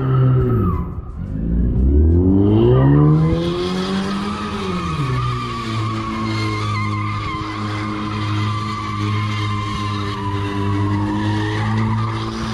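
A car doing donuts with its rear tyres spinning and squealing. The engine revs drop, climb and fall once in the first few seconds, then hold steady at high revs for the rest of the spin.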